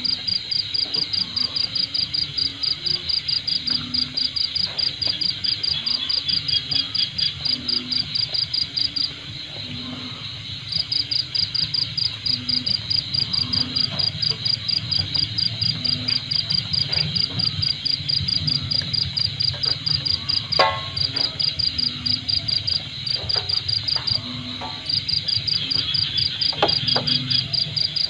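Insects chirping in a fast, even pulse that stops for a couple of seconds about nine seconds in and again briefly near the end, over a low steady rumble. A single sharp tap stands out about twenty seconds in.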